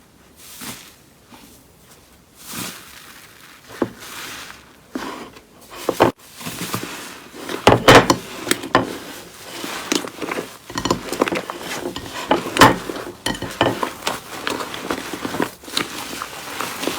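Slime being squeezed, poked and pressed by hand, making irregular wet clicks, pops and crackles. The sounds are sparse and faint at first and become busier and louder from about seven seconds in.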